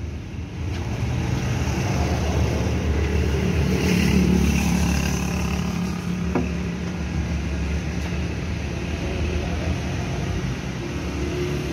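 An engine running steadily with a low, even hum, with one short knock about six seconds in.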